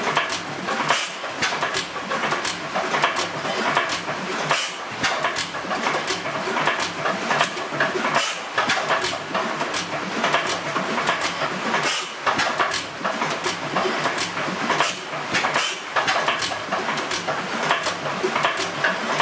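Crossley Bros horizontal stationary engine running steadily with its large flywheels turning, making a continuous clatter of sharp clicks and knocks, several a second.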